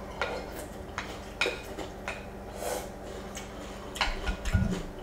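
Milk being drunk straight from a glass bowl: a few scattered sharp mouth clicks. Near the end a wooden spoon clinks against the glass bowl, with one low knock.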